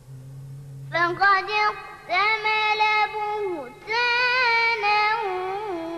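A boy's voice reciting the Quran in melodic tajwid style, coming in about a second in and holding long, ornamented notes whose pitch wavers and glides.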